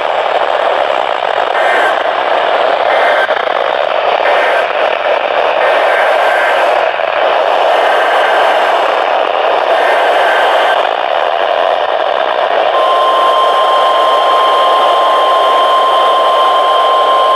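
Radio static hissing steadily from a receiver between alert messages, with faint short tones blipping every second or so. About 13 seconds in, a steady single alert tone starts and holds.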